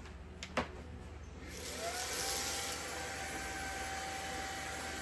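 A click, then a cordless handheld vacuum's motor starting up about a second and a half in: its whine rises briefly and then runs steadily with a rushing airflow.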